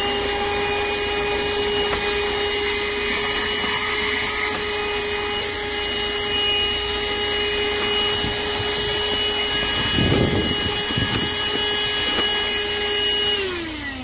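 Voroly 12-volt handheld car vacuum cleaner running with a steady high whine as its nozzle sucks dirt from a car's cup holder, with a brief rough burst about ten seconds in. Near the end the motor winds down and the whine falls away.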